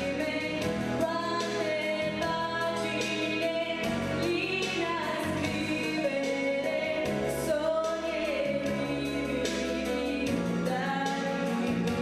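A teenage girl singing a song into a handheld microphone, holding and bending long notes, over instrumental accompaniment with a bass line and light percussion.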